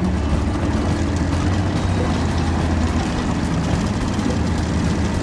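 Suzuki DT-40 two-stroke outboard running steadily at low harbor speed, a low even engine hum.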